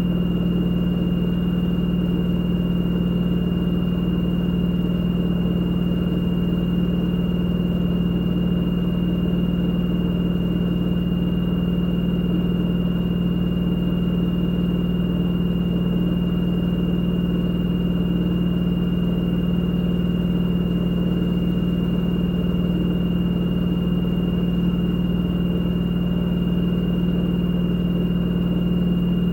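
LG direct-drive front-loading washing machine in its spin cycle, the drum turning at a steady high speed with a constant drone and a thin, steady high-pitched whine.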